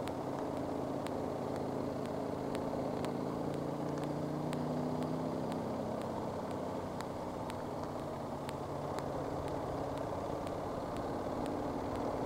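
Motorcycle engine running steadily on the move, with wind noise on the microphone. Its pitch rises a little about midway, then eases back.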